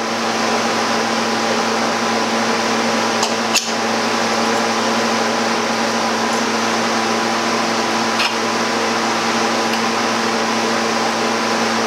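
Steady hum of a brewery chiller running: a constant machine drone with several steady tones over an even whoosh. Two light clicks, about three and a half and eight seconds in, from pump parts being handled.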